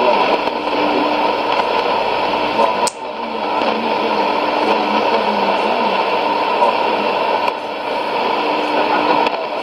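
Sony ICF-2001D shortwave receiver playing AM reception on 6100 kHz that is almost all hiss and static, the distant broadcast voice faded down into the noise. A sharp click with a brief dropout about three seconds in, and a smaller dip near the end.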